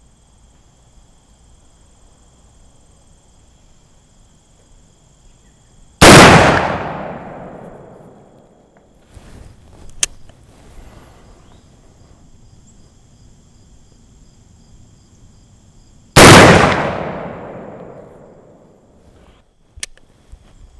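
Two shots from a .50 caliber Lyman Plains percussion pistol firing patched round balls over 40 grains of black powder, about ten seconds apart. Each is a sudden sharp report that dies away over a couple of seconds. A few faint sharp clicks fall between and after the shots.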